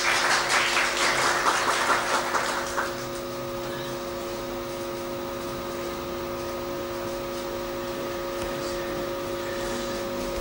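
Audience applauding, a dense patter of clapping that stops about three seconds in. It leaves a steady electrical hum with a few fixed tones.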